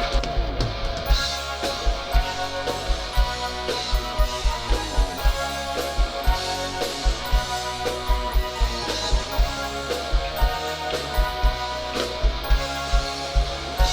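Live rock band playing an instrumental passage: a drum kit keeps a steady kick-drum beat under sustained electric guitar chords.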